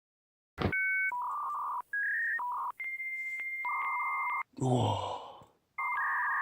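Dial-up modem handshake sound: a string of electronic tones and screeching data tones, including a long high steady tone broken by regular clicks about every half second.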